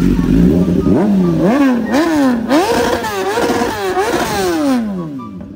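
BMW 1000cc sportbike's inline-four engine revved on the stand: it idles, then gets about six quick throttle blips, the pitch rising and dropping roughly twice a second, before it falls back to idle near the end.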